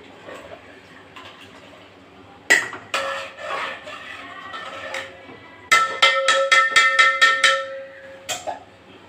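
A metal cooking pot clanking and ringing as it is struck with a metal utensil: one clank about two and a half seconds in, then a quick run of about eight ringing strikes over two seconds, a little past halfway.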